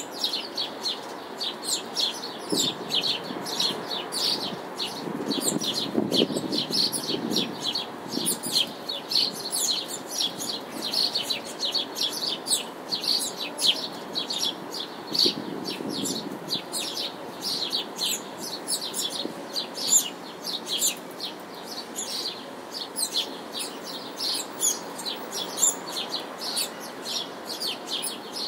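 Small birds chirping rapidly and without pause, a dense chorus of short high chirps, over a steady low hum of the city. The hum swells briefly around six seconds in and again around sixteen seconds in.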